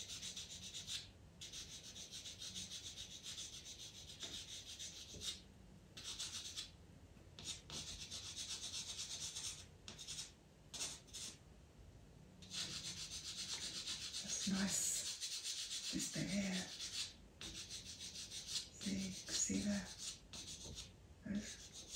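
Pastel pencil scratching across Pastelmat paper in quick, repeated fur strokes, with short pauses between runs of strokes and a few brief soft sounds near the end.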